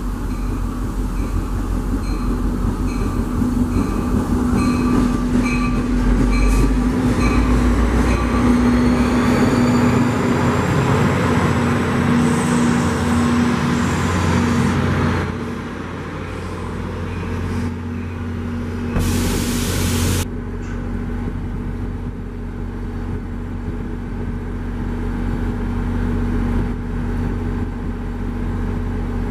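Diesel-hauled commuter train led by an EMD GP40PH-2B locomotive running past a platform, engine humming under the rumble of the train, with a high squeal rising and falling about halfway through its pass. Then a quieter, steady train rumble, with a short sharp hiss lasting about a second.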